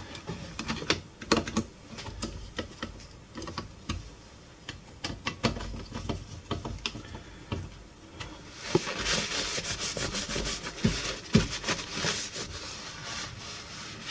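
Small clicks and taps of a metal amplifier front panel and its control knobs being handled and fitted by hand. More than halfway through, a steadier rubbing starts: a paper towel wiping the metal cover.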